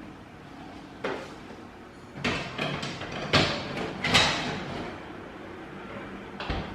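Oven door opened and closed, with a run of clunks and scrapes as the tray of small cake cups is handled; the loudest knocks come in the middle, and a last clunk near the end.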